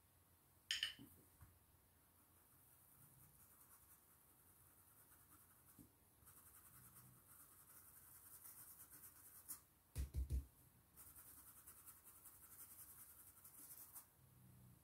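Faint scratching of a small stencil brush rubbing paint onto fabric through a stencil, growing more continuous in the second half, with a couple of low knocks about ten seconds in.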